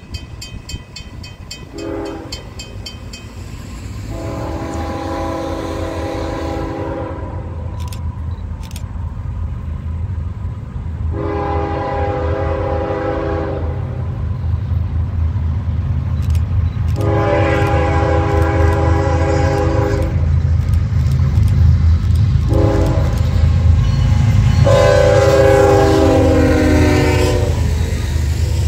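Freight locomotive horn sounding six blasts, long and short, the last four in the long-long-short-long grade-crossing pattern, over the low rumble of the approaching train that grows louder. The final long blast drops in pitch as the locomotive passes.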